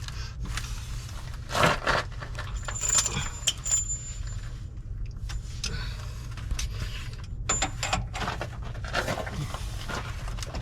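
Metal hand tools clinking and scraping as wrenches are handled and set down, with scattered sharp clanks and a couple of brief high metallic rings.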